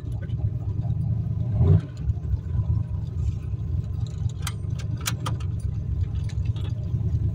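Turbocharged 351 Windsor V8 of a 1986 Fox-body Mustang running under way, heard from inside the cabin as a steady low rumble. It swells briefly just under two seconds in, then dips, and a few sharp clicks sound about four and a half to five seconds in.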